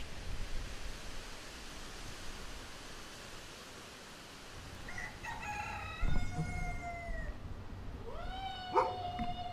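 A rooster crowing twice, about five and eight seconds in, each call a long held note that falls away at its end. A steady hiss fills the first half.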